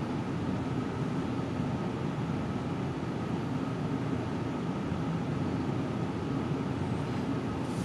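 Steady fan or ventilation hum, mostly low in pitch with a faint thin tone above it.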